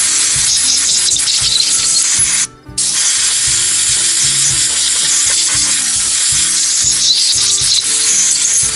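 Compressed air from a shop air hose hissing loudly in two long blasts, with a short break about two and a half seconds in, as it blows grime off a chainsaw's cast-metal cover plate.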